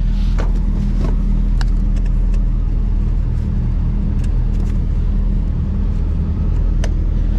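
Heavy truck's diesel engine idling with a steady low rumble, with a few sharp clicks.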